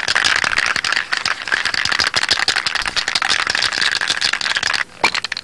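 A dense, fast rattling clatter that cuts off abruptly near the end, followed by one short burst of the same noise.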